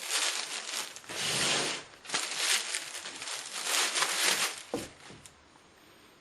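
Rustling and crinkling of product packaging being handled, in several bursts over about four and a half seconds, with a short click near the end.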